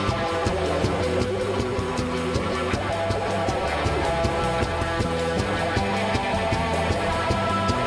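A live psychedelic rock band playing a song on electric guitar, bass guitar and drum kit, with a steady beat.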